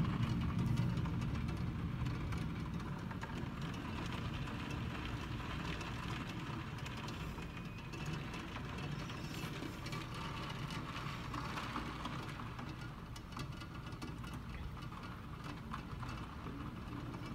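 Steady heavy rain falling over a city street, a dense even hiss, under a low steady rumble of city traffic.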